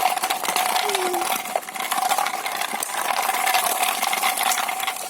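Battery-powered toy truck running: a small motor gives a steady whine over a fast, continuous plastic gear rattle, with a brief dip about a second and a half in.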